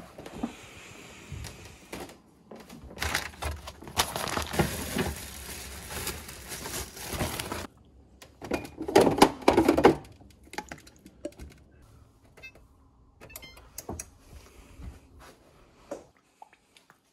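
Kitchen handling sounds: a refrigerator door opened and bottles knocked and lifted out of its door shelves, then things set down on a counter with scattered knocks and clicks. A few seconds of steady noise cut off abruptly partway through.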